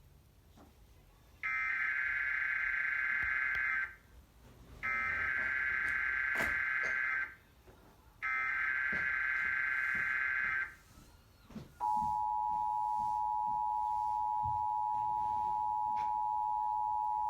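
Emergency Alert System SAME header: three identical bursts of warbling digital data tones, each about two and a half seconds long with short pauses between. After them the steady two-tone EAS attention signal begins and holds. This is a broadcast TV station relaying a Required Monthly Test.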